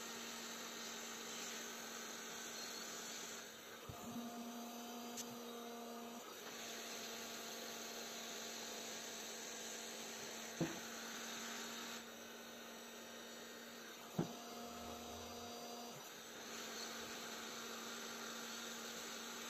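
Steady electrical mains hum under a low hiss, with a couple of short, light clicks about ten and fourteen seconds in.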